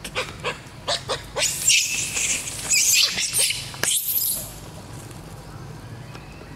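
A mating pair of long-tailed macaques calling: a quick run of short squeaks, then about three seconds of loud, harsh screaming that dies away around four and a half seconds in.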